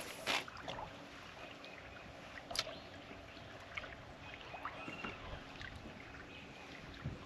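Sharp knocks and small clicks of gear being handled aboard a kayak, two at the start and one about two and a half seconds in, over a faint steady hiss of water and wind.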